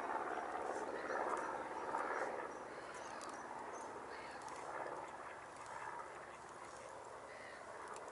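Faint animal calls over a steady outdoor background, louder for about the first two seconds.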